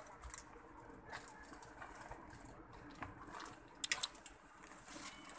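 Portable butane stove's igniter clicking as the knob is turned to light the burner: three quick, sharp clicks about four seconds in.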